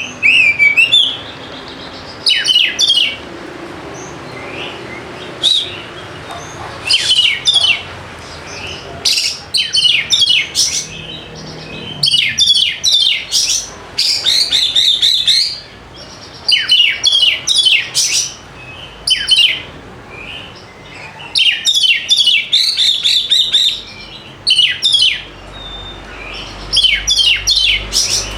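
Oriental magpie-robin (kacer) singing: repeated loud bursts of rapid, varied whistled and chattering notes with short pauses between, the full 'gacor' song used to lure other kacer into singing.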